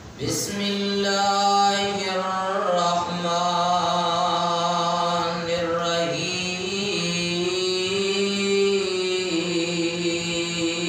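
A man's voice chanting Quranic recitation in one long melodic phrase, holding drawn-out notes that slowly shift in pitch. It starts just after the beginning.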